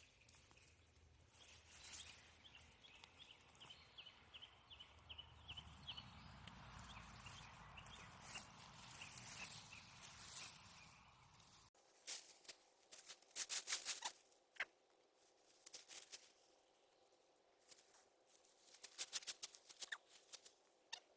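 Rustling, crackling and scraping of potato foliage and soil being handled as plants are pulled and potatoes dug, with scattered clicks and knocks. A run of quick high chirps sounds early on, and a low background rumble cuts off abruptly about halfway through.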